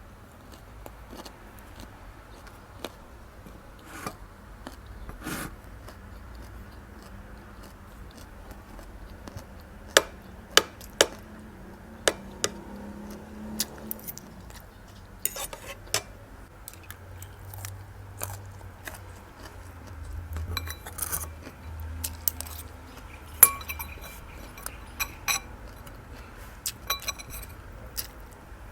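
Cutlery clicking and clinking against a dish at irregular intervals while eating, a few strikes ringing briefly. The loudest strikes come about a third of the way in and again past two-thirds.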